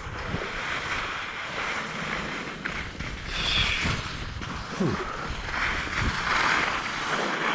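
Wind blowing across the microphone, an uneven rush with low rumble and a couple of brief swells of hiss.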